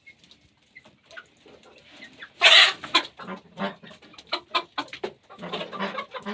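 Chickens clucking in short, irregular calls, with one loud squawk about two and a half seconds in and busier clucking near the end.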